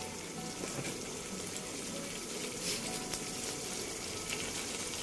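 Thick acar sauce of dried squid and vegetables sizzling and bubbling steadily in a wok, cooked with no water added.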